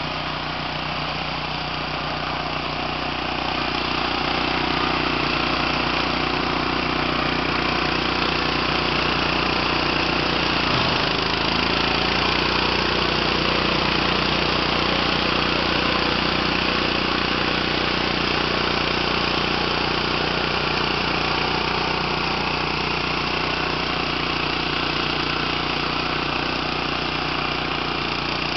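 Orec HR800 walk-behind flail mower running steadily under load, its small petrol engine and flail rotor chopping through tall grass. The engine note dips briefly partway through.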